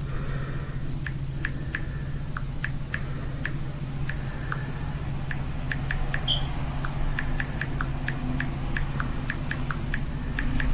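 Irregular light clicks and taps, two or three a second, over a steady low hum, with one brief high squeak about six seconds in.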